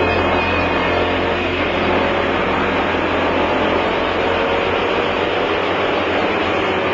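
Twin-turbocharged 1967 Ford Mustang driving, heard from inside the cabin: a steady engine note that rises slowly over the first few seconds, under a constant rush of noise.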